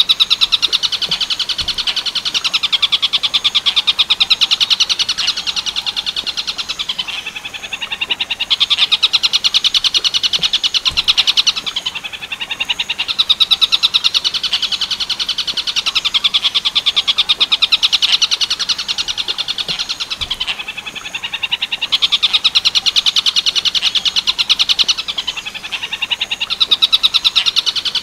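Bird call recording of the 'tengkek buto' (Werkudoro type) song: a fast, rattling trill, high-pitched and continuous, in long phrases of several seconds broken by brief dips.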